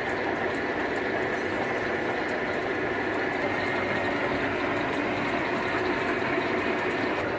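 An engine running steadily at a constant speed, with no change in pitch or level.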